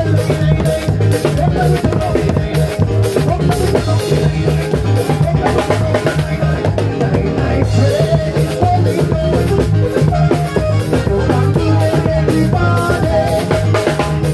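Loud music with a steady drum-kit beat and a pulsing bass line.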